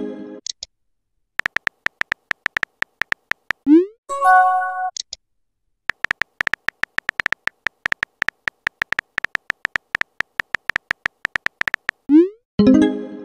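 Texting-app sound effects: rapid keyboard-tap clicks as a message is typed. About four seconds in, and again near the end, they give way to a short rising swoop and a brief chime as a message is sent.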